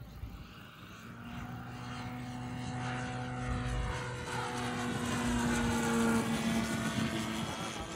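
Saito FG61TS four-stroke engine of a model Pitts biplane, running at steady throttle in flight. The propeller drone grows louder as the plane approaches and is loudest about six seconds in as it flies past.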